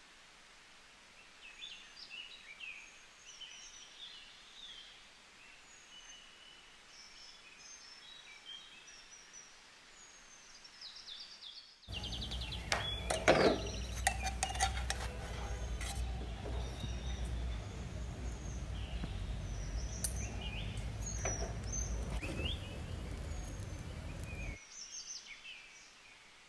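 Birds chirping faintly in the background. About halfway through, the low steady rumble of a lit gas stove burner sets in, with metal tongs clinking against a frying pan as a roti is lifted out; the burner sound cuts off shortly before the end.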